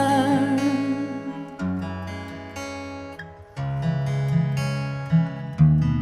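Background music: acoustic guitar strumming chords, after a sung note trails off at the very start.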